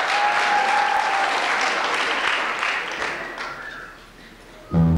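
Audience clapping in a hall, fading away after about three and a half seconds. Music with a heavy bass line starts just before the end.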